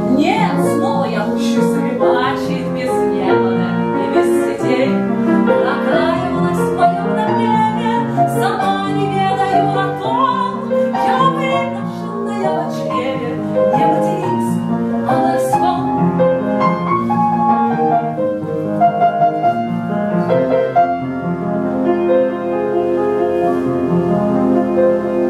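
A woman singing a romance in a classical, operatic style with piano accompaniment.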